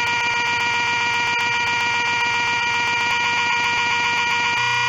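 A loud, steady electronic buzzing tone held at one pitch, like a synthesized buzzer. Its timbre shifts slightly near the end.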